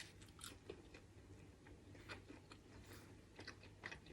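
Near silence with faint, scattered soft crunches and clicks of someone chewing a bite of crispy fried quesadilla.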